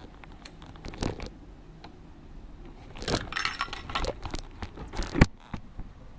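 Small metal objects jingling and clinking as they are handled, with a few knocks in between; the loudest knock comes a little after five seconds.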